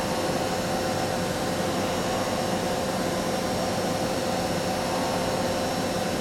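Doosan VC630 vertical machining centre milling, a steady rushing noise with a steady whine held on one pitch throughout.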